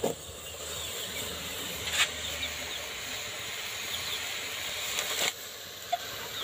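Spice-coated chicken sizzling in oil in a metal pot while a ladle stirs and turns it, with a steady hiss and the ladle knocking against the pot twice, about two and five seconds in.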